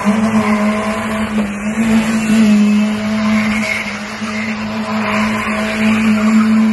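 Car engine sound effect, an engine held at steady high revs with a constant drone.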